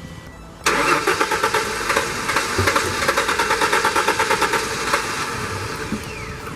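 A 1994–98 Ford Mustang's engine being cranked by the starter, turning over in an even pulsing rhythm without catching, then stopping after about five seconds. It cranks but does not start, with the car's anti-theft immobilizer (PATS) suspected of blocking the start.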